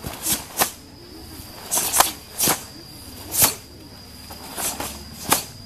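Sharp swishing snaps of a karate uniform (gi) cracking with fast punches and kicks during a kata. There are about eight, in irregular clusters of one to three.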